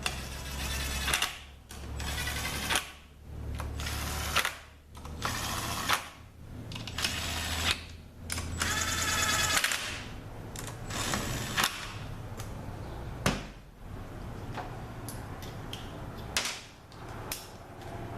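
Valve-body bolts on a ZF6HP26 transmission being run down with a small power driver, its motor whirring in short bursts with pauses in between for each bolt. In the second half come scattered sharp clicks and knocks of tools and bolts.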